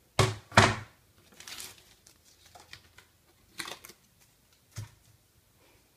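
A few sharp knocks and rustles in a small room: two loud knocks close together at the start, then scattered softer knocks.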